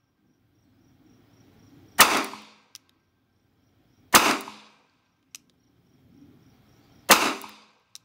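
Three gunshots from a Colt Model 1901 Army double-action revolver firing .38 Special rounds in its .38 Long Colt chambers, about two to three seconds apart. Each shot is a sharp crack with a short fading tail, and a faint click follows each about a second later.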